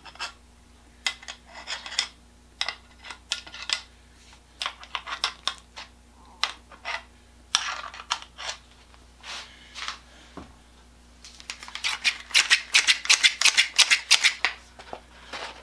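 Newly sharpened hedge shears, their pivot just oiled, being worked open and shut: scattered clicks and blade scrapes at first, then a quick run of metal snipping strokes near the end.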